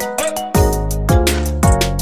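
Electronic background music with a steady beat: deep bass hits that drop in pitch, held synth chords and crisp high percussion.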